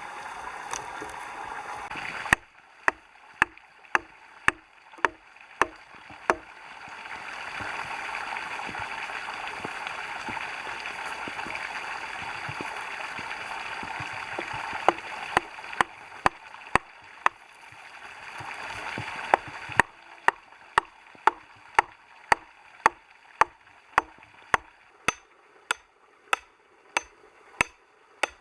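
Regular sharp strikes of a tool, about three every two seconds, as if chopping or hammering. The strikes pause through the middle, where the rushing of a stream is loudest.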